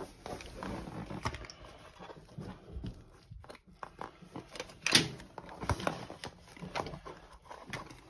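Gloved hands handling tools on a floor mat: irregular clicks, taps and rustling as multimeter probes, screwdrivers and a small cartridge fuse are picked up and set down, with one sharper click about five seconds in.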